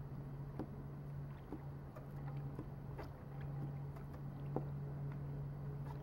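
Primer bulb on a Husqvarna 130BT backpack blower's fuel system being pumped by hand, a series of soft clicks about once a second as it draws fuel up from the tank. A steady low hum runs underneath.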